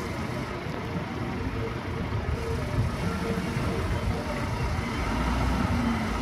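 Jeep engine running steadily, a dense low rumble that grows a little louder near the end.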